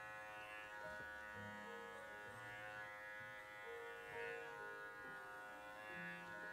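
Soft background music: a melody of plucked notes moving over a steady drone.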